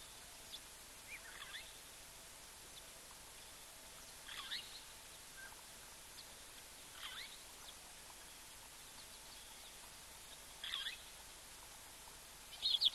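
A bird calling: a short chirping call repeated about every three seconds, five times, the last one the loudest, over a steady faint outdoor hiss.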